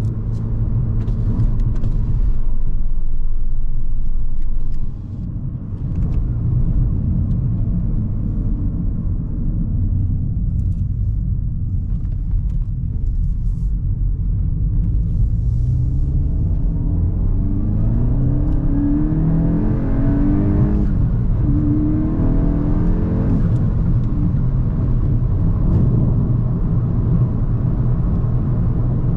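Volkswagen Golf GTI Mk8's turbocharged 2.0-litre four-cylinder engine with a low steady rumble while cruising. Past the middle it pulls hard, the revs climbing, then drop at a gear change and climb again before it eases off.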